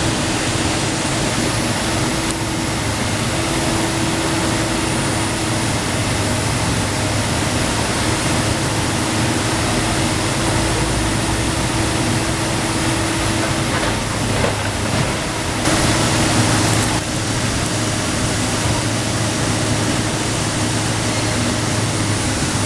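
Komatsu PC290 NLC excavator's diesel engine running steadily, with a constant low hum and a higher steady tone over a wash of noise. A louder noise lasting just over a second comes about two-thirds of the way through.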